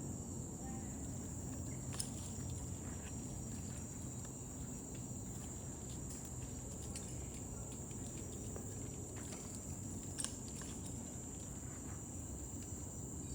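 Steady high-pitched insect drone over low background rumble, with two brief sharp clicks, one about two seconds in and one about ten seconds in.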